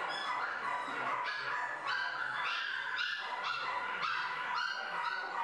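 Dogs whining and yipping: a steady, overlapping run of high whines without a break.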